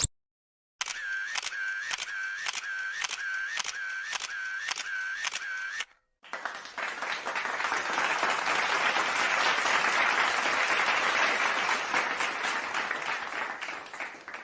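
Camera shutter sound effect: a run of regular shutter clicks, about two a second, each with a short tone, lasting about five seconds. Then a round of applause swells up and fades away.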